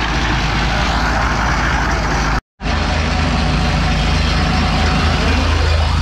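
Engine of a portable drum concrete mixer running steadily with a deep low drone. The sound cuts out for a moment about two and a half seconds in, and the low drone is heavier after that.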